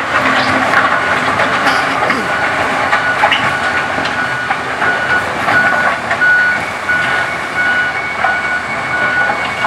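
Wheel loader working, its engine running steadily with occasional knocks, and from about four seconds in its reversing alarm beeping about twice a second.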